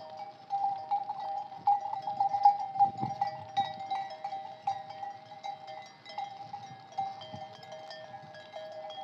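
Many bells on a flock of sheep clanking, with several ringing tones overlapping and frequent quick strikes, busiest in the first half.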